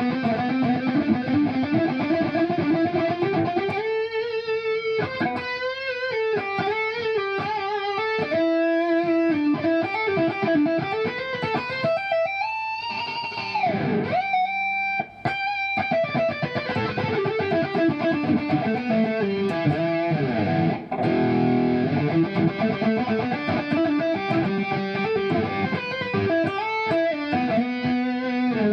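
Kiesel Vader electric guitar with Kiesel Polarity pickups in active mode, played through high-gain distortion: fast legato lead runs and sustained, bent notes, with a deep bend down in pitch about halfway through.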